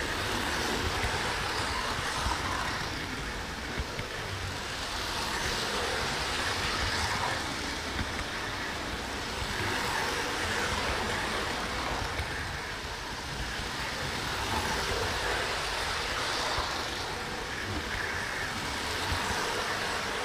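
Model train running on its track, heard from a camera riding on one of its wagons: a steady rolling rumble and rattle of wheels on rails, swelling and easing every couple of seconds.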